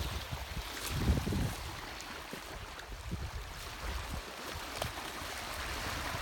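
Wind buffeting the phone's microphone, with small waves washing onto a pebbly shore; a stronger gust about a second in.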